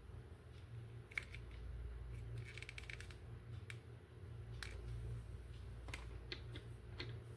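Scattered small clicks and taps of a plastic toy being handled, with a quick run of clicks about two and a half seconds in, over a steady low hum.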